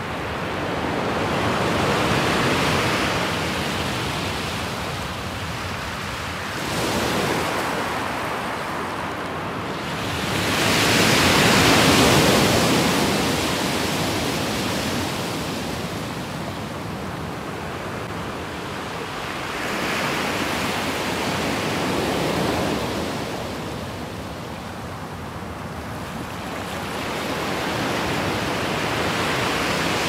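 Small sea waves breaking and washing up a pebble beach. The surf swells and falls back every several seconds, loudest about twelve seconds in.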